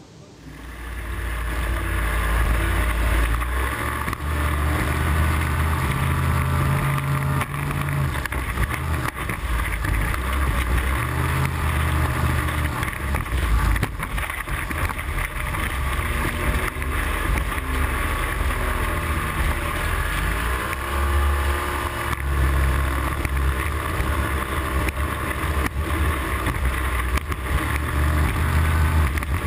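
Speedboat's outboard motor running at speed, heard up close at the transom, with water rushing and spraying off the hull. The engine pitch wavers and rises and falls several times as the boat crosses the chop.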